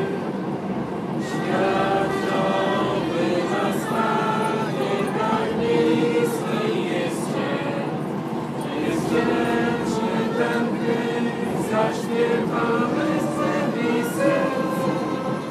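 Several voices singing a song together inside a coach, over the low steady rumble of the bus.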